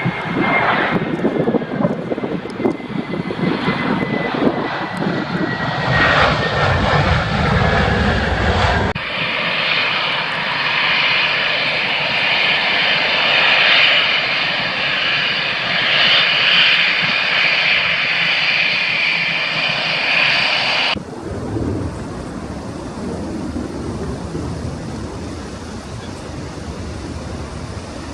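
Jet airliner engines at close range, with strong gusty wind rumbling on the microphone. A whine falls slowly in pitch over the first several seconds. The sound then switches abruptly to a steady high engine hiss, and about 21 seconds in it drops just as abruptly to a quieter low rumble.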